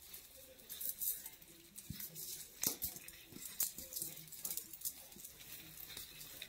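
Hands working a pipe cleaner around an artificial pine garland: light rustling and crinkling, with scattered small clicks throughout.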